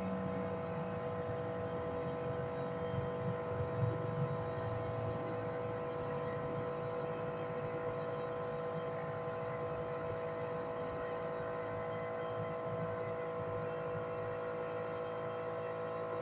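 Steady machine hum at a constant pitch, with an uneven low throbbing in the first few seconds.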